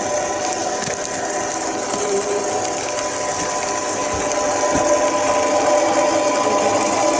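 Mini lathe running, a steady motor and gear whine over a hiss, growing slightly louder. Two dull low knocks about four and a half seconds in.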